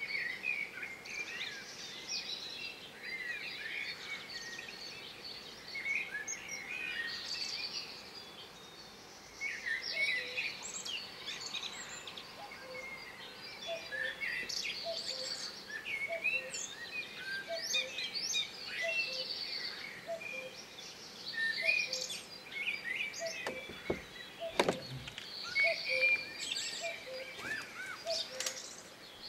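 Several songbirds singing and chirping in a steady run of high, quick calls. Through the second half a lower note repeats about once a second, and two short knocks come a few seconds before the end.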